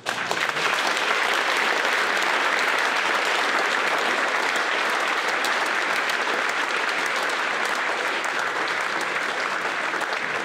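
Audience applauding, starting abruptly and holding steady throughout.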